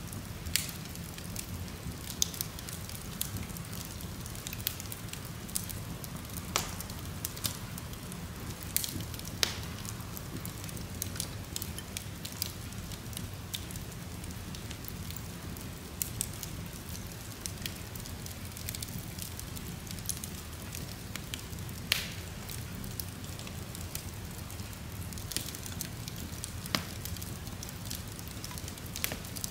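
Wood log fire burning in a fireplace: irregular crackles and sharp pops over a steady low rumble of flame, with one of the louder pops about two-thirds of the way through.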